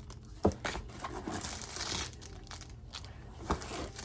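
Wrapping paper crinkling and tearing as a present is unwrapped, with a light knock about half a second in and another near the end.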